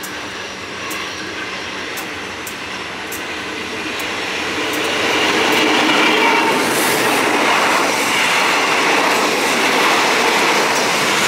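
Diesel-hauled passenger train 167 running into the station. It grows louder over the first six seconds, with its wheels clicking over the rail joints, then holds at a steady, loud rumble as it rolls past.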